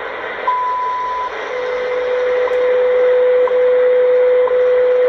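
WWV time-signal broadcast on 25 MHz heard through an ATS-25 shortwave receiver's speaker, over steady static hiss. About half a second in comes the long beep that marks the minute at the tone. Then a steady lower audio tone starts and runs on, broken once a second by a short clock tick.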